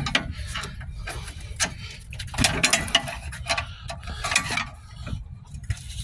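Irregular metallic clicks, knocks and scrapes of a screwdriver prying an old suspension coil spring out of its seat.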